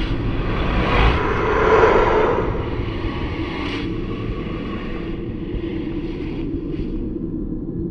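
Dark horror ambience: a steady low rumble, with a noisy whoosh that swells and fades between about one and three seconds in.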